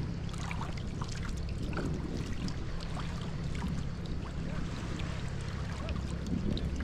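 Sea kayak being paddled: water splashing and trickling off a Greenland paddle and along the carbon-Kevlar hull in many small drips and splashes, over a steady low rumble.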